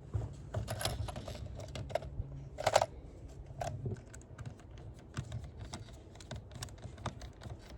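Quick, irregular clicks and taps of hard plastic from a toy bubble gun being handled, with a louder cluster of clicks a little under three seconds in.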